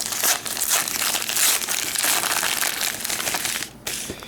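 Wrapper of a rack pack of trading cards crinkling as it is worked open, a dense run of crackles that dies down near the end.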